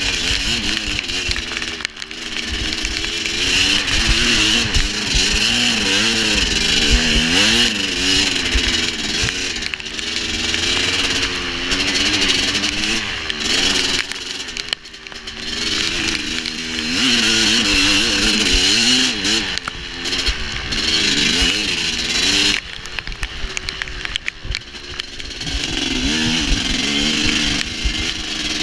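Dirt bike engine being ridden, its pitch rising and falling constantly with the throttle and easing off briefly a few times, with wind buffeting on the microphone.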